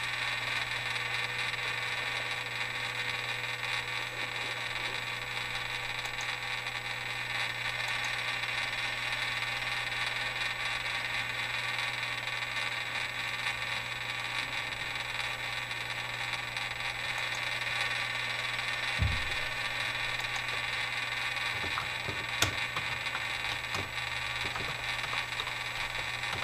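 Steady hiss with a low hum underneath, unchanging throughout, broken by two faint knocks a few seconds apart near the end.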